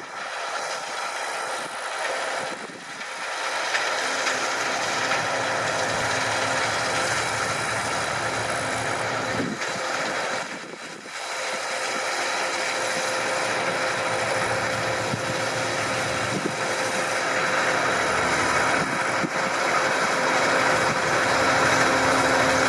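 Claas Lexion 670 combine harvester running, a steady engine and machinery drone with a constant whine in it. The sound dips briefly about eleven seconds in, then carries on a little louder toward the end.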